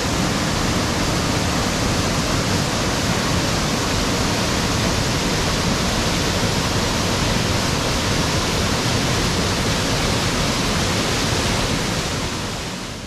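Tateshina Otaki waterfall: a steady, dense rush of falling water that fades away near the end.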